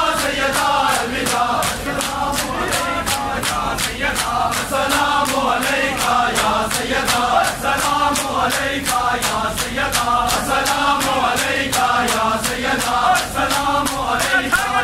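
Large group of male mourners chanting a noha (Shia lament) in unison, over a steady, evenly spaced beat of matam: hands striking chests in time with the chant.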